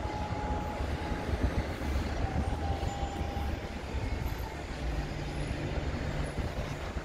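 A large vehicle rumbling steadily, with a low hum that comes in partway through and stops near the end.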